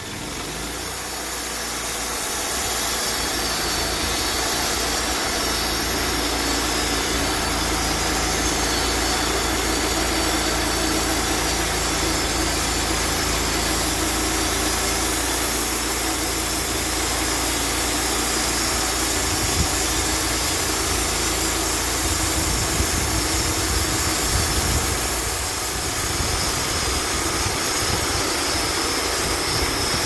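Wood-Mizer LT35 portable band sawmill running under power: its engine and spinning band blade build up over the first couple of seconds, then run steadily as the saw head feeds through a box elder log.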